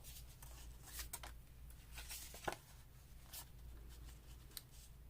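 Faint rustling and a few light taps of paper being handled, over a steady low hum.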